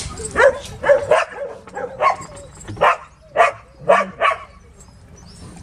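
A run of about eight short, sharp dog barks over some four seconds, which stop about a second before the end.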